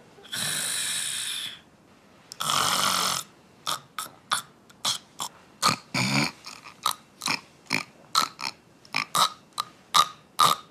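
A person snoring: two long, noisy snores, then a quick run of short snorts, about two or three a second.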